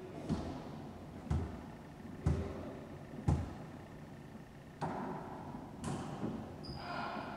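A volleyball thudding in an echoing racquetball court: four evenly spaced thumps about a second apart, then two more hits about a second apart past the middle. A short high squeak comes near the end.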